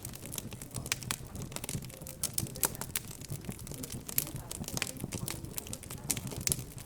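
Wood fire crackling in a fireplace, with frequent irregular pops and snaps, over a low hum of background chatter.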